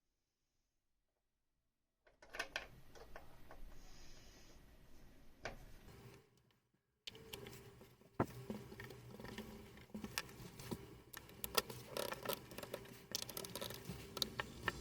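Small clicks, taps and rustling from hands handling parts and cables on a workbench, starting about two seconds in, with a brief pause in the middle.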